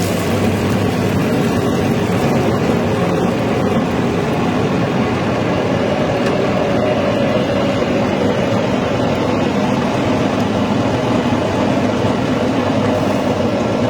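Feed pellet mill running steadily, a loud, even mechanical hum with no breaks.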